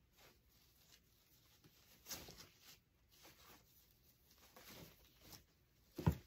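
Quiet rustling and crinkling of ribbon as the loops of a large ribbon bow are handled and fluffed by hand, with a single short thump just before the end.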